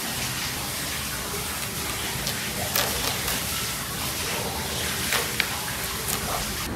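A steady rushing noise, like running water, with a few faint clicks about three and five seconds in.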